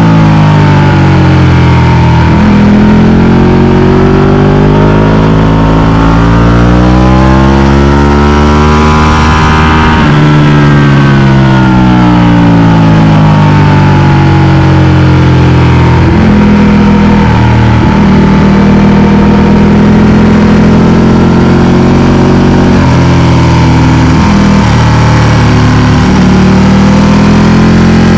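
Ducati Panigale 1299 S sportbike's V-twin engine, heard from on the bike at track speed. The engine note drops, climbs steadily for several seconds under acceleration, then falls away. It then runs steadier, broken by a few brief dips.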